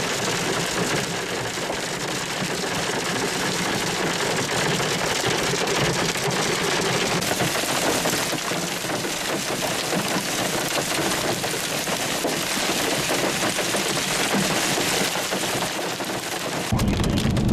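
Hail falling hard, a dense, steady patter of many small impacts. A deeper rumble joins near the end.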